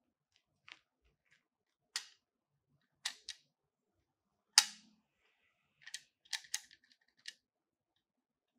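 Hard plastic clicks and knocks from the parts of a Yunteng video tripod as gloved hands fit and move them: scattered single clicks, the loudest about four and a half seconds in with a short dull knock under it, then a quick run of several clicks near the end.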